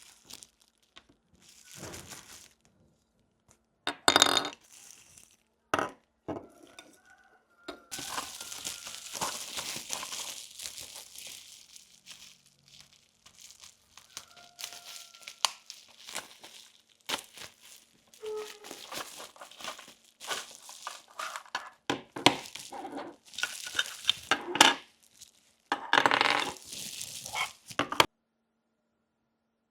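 Small plastic miniature toy pieces being handled and set down, with crinkling of plastic packaging: a run of sharp clicks, clinks and taps between stretches of rustling, stopping shortly before the end.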